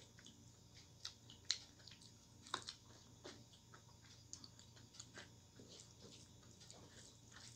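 Faint, wet chewing and mouth sounds of a person eating rice and dal by hand, with soft squelches as fingers mix the rice on a plate. Short, scattered clicks come at an irregular pace, with the clearest ones about a second and a half and two and a half seconds in.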